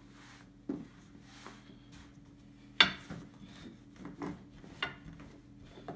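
Thin wooden rolling pin rolling out croissant dough on a floured wooden table: soft rubbing, with a few wooden knocks, the sharpest about three seconds in. A faint steady hum underneath.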